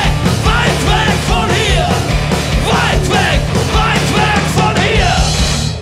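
Live rock band playing loud: electric guitars, keyboard and a drum kit, with a man singing and shouting over them.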